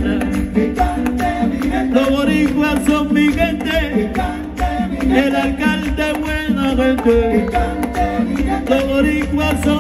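Live merengue band playing loud through a PA: several men singing together over a steady, fast beat of hand drums and percussion, with a strong bass line.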